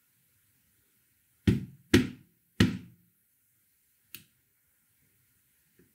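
Three dull knocks about half a second apart, each with a short ring, then one light click about a second and a half later, from hard espresso tools being set down and handled on a tamping station.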